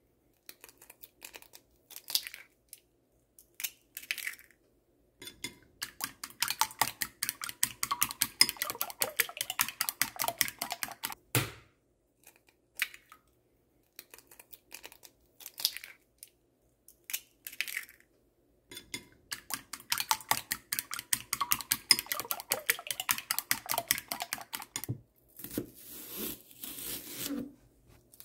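Eggs being cracked into a glass bowl and beaten: a few separate taps and cracks, then two long runs of rapid clicking strokes against the bowl.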